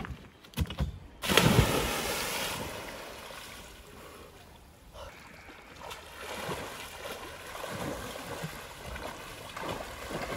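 Water splashing and rushing. It starts abruptly about a second in, fades over the next few seconds, then carries on as a steady rush that swells again about halfway through.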